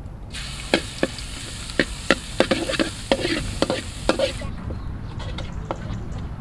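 Food stir-frying in a hot pan: loud sizzling with a metal spatula scraping and clacking against the pan many times. The sizzle cuts off suddenly about four and a half seconds in, leaving a few lighter clacks.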